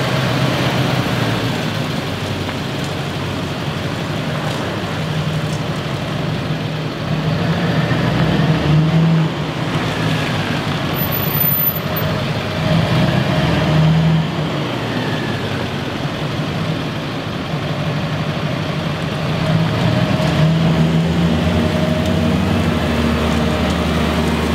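Pickup truck engine running, swelling louder a few times as the truck moves across the lot, over a steady hiss of tyres and engine noise.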